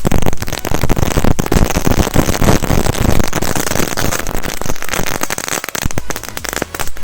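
A firecracker belt going off in a campfire: a rapid, dense string of loud bangs that thins out near the end.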